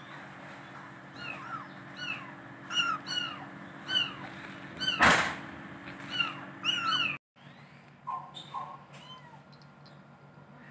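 Kitten mewing in a rapid series of about a dozen short, high-pitched mews, with a brief loud noise about five seconds in. The sound cuts out for a moment after about seven seconds and is quieter after that.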